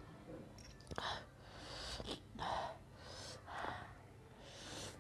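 Close-up mouth sounds of eating buff chowmein: a series of short slurps and chews of noodles, with audible breaths in between.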